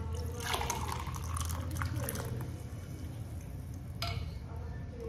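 Spice decoction poured from a pan through a steel tea strainer into a glass, splashing and trickling for about two seconds before tapering off. A short sharp click comes about four seconds in.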